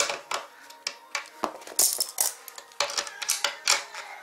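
Metal hand tools clicking and clinking irregularly: a ratchet wrench and socket, with locking pliers holding the nut, loosening an electric scooter's deck bolt.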